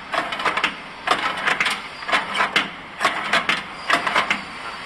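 Conveyor chain of a flow pack wrapping machine clattering link by link as a hand-turned handle drives the sprocket and pulls the chain through. The sound is irregular runs of sharp clicks and clacks.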